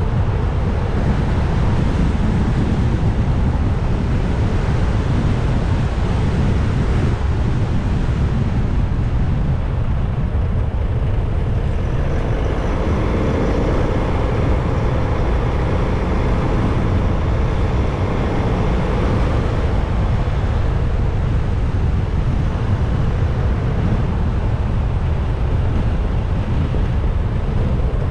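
Steady wind rushing over the microphone with road and engine noise from a motorcycle riding at speed, heaviest in the low end and unbroken throughout.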